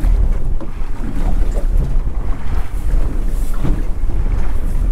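Strong wind buffeting the microphone aboard a small boat: a steady low rumble with sea noise beneath it.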